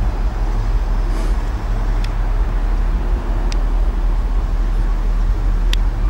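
Steady low rumble of a vehicle engine, with three brief, faint high chirps about two, three and a half, and nearly six seconds in.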